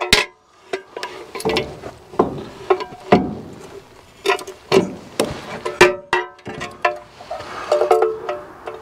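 Hollow sheet-metal pay box clanking and knocking as it is handled and set against a wooden post, each knock ringing briefly. Near the end, quick clicks of a socket wrench ratcheting as a mounting bolt is tightened inside the box.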